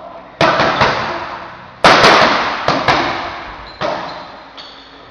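Boxing gloves smacking into focus mitts in a series of sharp punches, some in quick pairs, the loudest about two seconds in, each ringing on briefly in the hall's echo.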